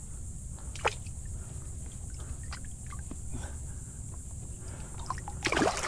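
A hooked snook splashing and thrashing in shallow water near the end, after a few faint ticks and one sharp click about a second in.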